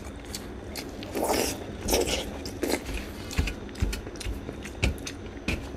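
Close-up mouth sounds of a man chewing and smacking a mouthful of rice with fried egg and soy sauce: a run of small wet clicks, with a few short scraping noises about a second and two seconds in.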